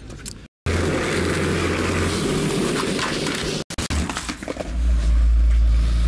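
Skateboard wheels rolling on concrete, a loud steady rolling noise that cuts off suddenly. Then a heavy low rumble of hands handling the camcorder and its microphone.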